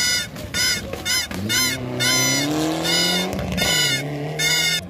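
Rally car engine accelerating hard past, its pitch climbing for about two seconds and then dropping away. Repeated short, high-pitched honking hoots sound over it.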